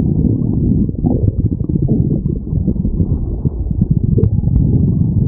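A stomach growling in a long, unbroken low rumble, with a few small clicks and pops through it.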